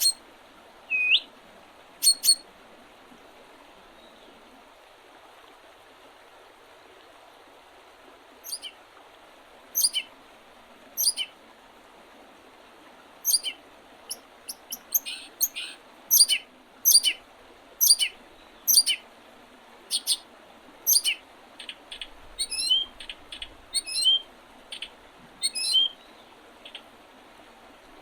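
Songbirds calling in early spring: short, sharp, high chirps, a few at first, then after a lull about one a second, growing denser with some quick rising notes near the end, over a faint steady background hiss.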